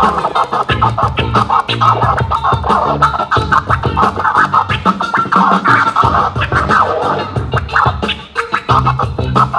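DJ scratching a vinyl record on a turntable over a hip hop beat: rapid back-and-forth scratch strokes riding on a bass line that drops out midway and comes back near the end.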